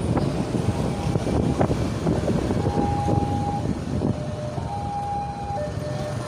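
Motorcycle and truck traffic running. From about two and a half seconds in, a railway level-crossing alarm sounds a two-tone high-low signal, each tone held about a second, warning of an approaching train.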